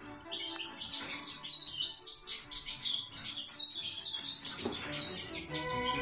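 Canaries chirping and singing in rapid, warbled runs of high notes, with music playing underneath.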